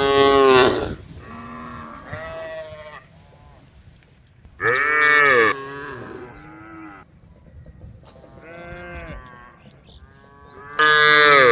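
Cows mooing: a series of drawn-out calls, three loud ones at the start, the middle and near the end, with fainter calls between them.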